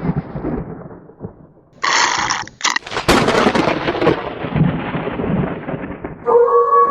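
A short burst of hiss about two seconds in, then a thunder-like crash and rumble that fades away over about three seconds; near the end a steady held tone sets in.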